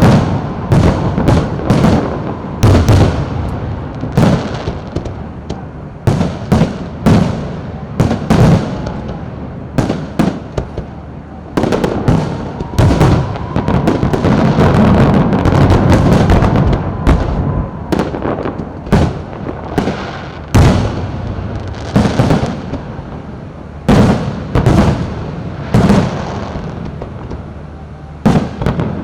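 Aerial fireworks bursting overhead in a rapid, irregular barrage of loud bangs, each trailing into a low rumbling echo.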